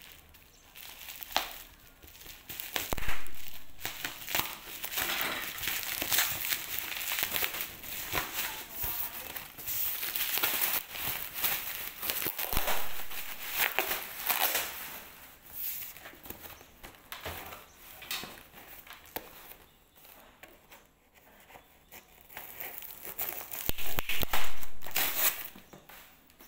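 Plastic bubble wrap crinkling and crackling as it is pulled off a parcel, rising and falling as it is handled. A few knocks come from the cardboard box being moved, the loudest about three seconds in and again near the end, with a quieter spell shortly before that last one.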